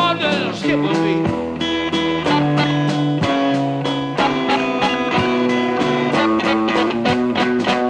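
Instrumental break in an electric blues recording: electric guitars play a repeating low figure under picked lead notes, with regular percussive hits and no singing.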